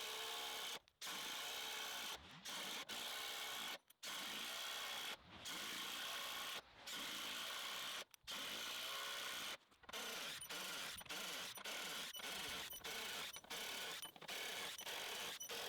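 DeWALT Atomic DCF809 impact driver hammering long self-tapping screws in and out. Runs of about a second and a half are cut off by brief gaps, which come about every half second in the last third.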